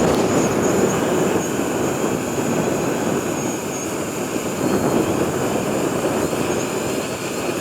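DJI Mavic Pro quadcopter hovering in strong wind: a steady high whine from its propellers over rough, fluttering wind noise on the microphone.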